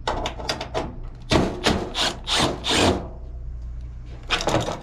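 A cordless drill/driver backing screws out of a walk-in cooler's old mechanical thermostat control. A quick run of clicks and knocks comes first, then several short bursts from the drill, with tool clatter against the metal and wood, all over a steady low hum.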